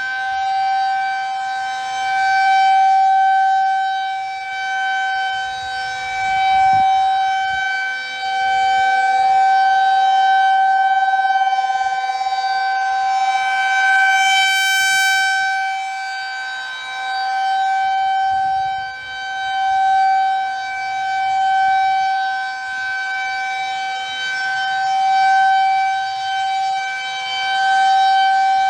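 Federal Signal 2001 rotating tornado siren sounding a steady tone during its test. It holds one pitch and swells and fades in loudness every few seconds as the horn turns.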